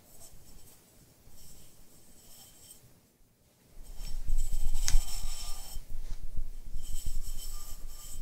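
Fingers and sandpaper rubbing quietly over a bisque-fired clay cup, then, after a brief pause, a damp sponge wiping over the cup's surface, much louder, with one sharp click about five seconds in.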